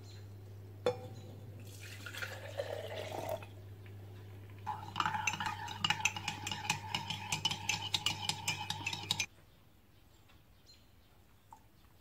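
Coffee poured into a ceramic mug, then a teaspoon stirring it, clinking rapidly against the inside of the mug for about four seconds. A low hum runs under both and cuts off with the stirring.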